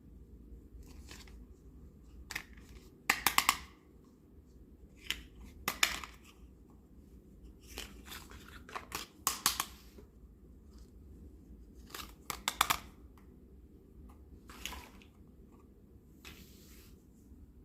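Plastic packaging and small plastic toy pieces being handled: short bursts of crinkling and tearing with sharp little clicks, coming in about eight separate clusters, the loudest about three, six, nine and a half, and twelve and a half seconds in.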